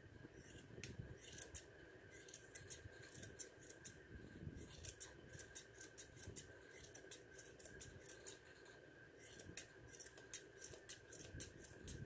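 Grooming shears snipping through a standard poodle puppy's thick curly coat: quick runs of crisp snips, several a second, broken by short pauses.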